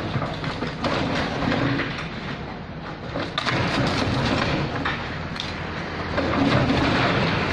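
Komatsu PC78UU excavator's diesel engine running under load, with masonry and timber cracking and crunching as the building is broken up. The crunching gets louder about three and a half seconds in and again near the end.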